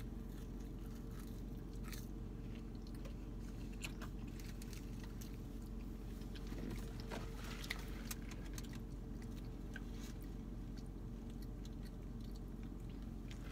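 Close-up chewing and biting of a McChicken sandwich and french fries, with scattered small mouth clicks over a steady low hum.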